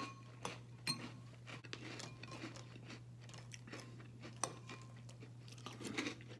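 Metal spoon clinking against glass cereal bowls a few times, each clink ringing briefly, with faint chewing and crunching of Apple Jacks cereal in milk in between. A steady low hum lies under it.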